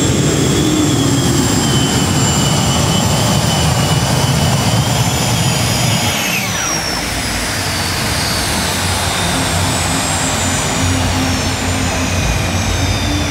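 Competition pulling tractor running flat out, its engine noise topped by a high whine. About six seconds in the whine drops sharply, then keeps falling slowly.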